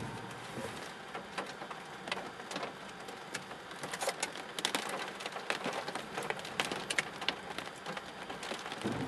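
Rain in a storm: a light hiss with scattered drops ticking sharply close to the microphone, the ticks coming thicker about four seconds in.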